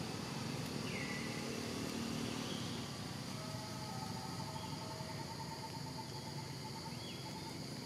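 Outdoor forest ambience: a steady high insect drone over a background hiss, with a faint pulsing trill joining about three seconds in and a few faint short chirps.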